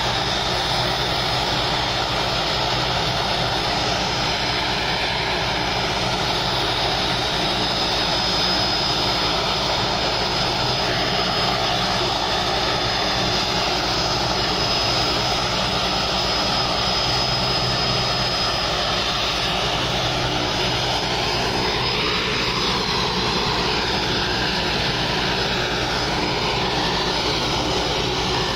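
Propeller aircraft engine running steadily and loudly, with no break or change in level.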